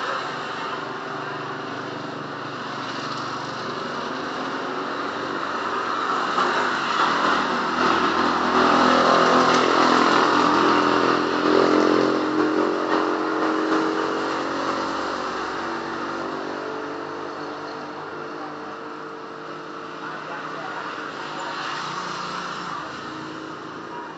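A small motorbike passing along the street, its engine growing louder to a peak about halfway through and then fading away.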